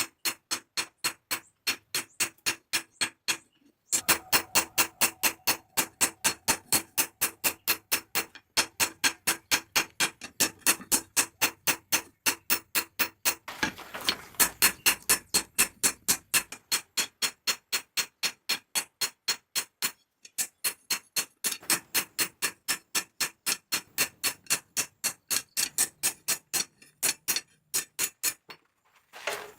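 Hammer blows on hot steel at the anvil, forging a knife blade: sharp ringing strikes about three a second, with a few short pauses between runs.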